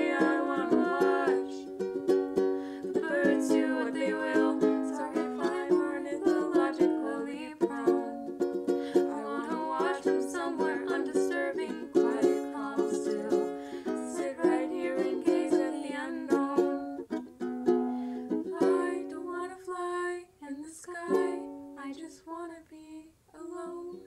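Instrumental music on a plucked string instrument: a busy run of quick notes over held lower notes, thinning to sparse single notes near the end.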